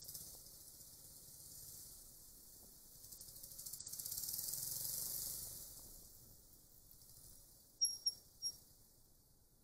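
Faint high hiss picked up by a motorcycle-mounted dashcam riding slowly in traffic, swelling for about two seconds in the middle. Three short, high-pitched chirps come near the end.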